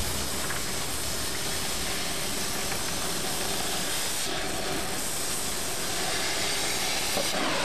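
Henrob 2000 oxy-acetylene torch flame hissing steadily as it cuts through steel plate.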